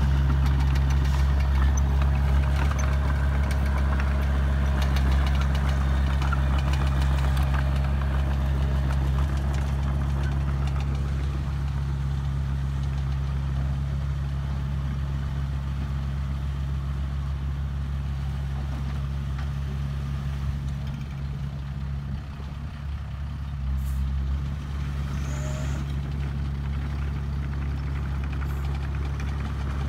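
Dump truck's diesel engine running steadily while its tipper bed is raised to dump a load of soil. The engine note dips briefly about two-thirds of the way in, then picks up again.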